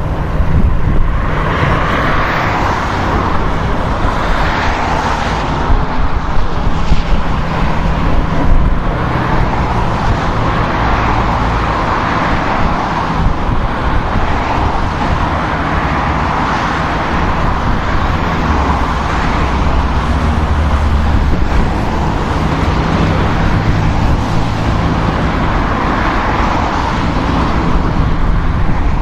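Steady loud rushing noise of an aircraft over a continuous low rumble and hum, swelling and easing every couple of seconds.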